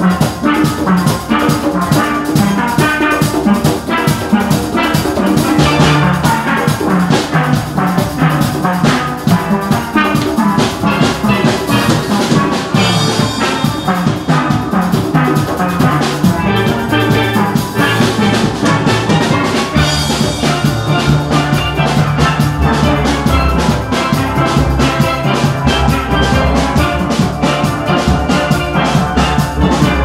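A steel band playing: many steel pans struck with rubber-tipped mallets in a fast, dense rhythm, with drums and low notes underneath that drop lower about two-thirds of the way through.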